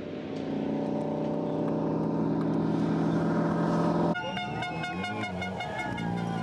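BMW M 1000 RR superbike's inline-four engine running at steady revs as the bike rolls slowly closer, growing a little louder. About four seconds in it gives way abruptly to crowd noise with high piping tones.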